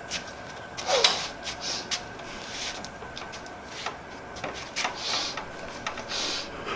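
Knocks, rubs and rustles of people handling a wooden door and their load, with a short falling creak about a second in and a few soft breathy hisses.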